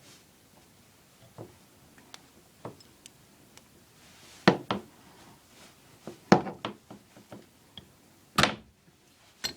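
A series of irregular knocks and clunks, with the loudest a little before halfway, around two-thirds of the way, and near the end.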